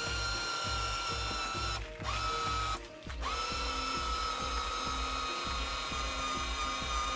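Electric corner jacks of a Lance truck camper whining steadily as their motors lower the camper. The whine stops briefly twice, about two and three seconds in, and rises back up each time.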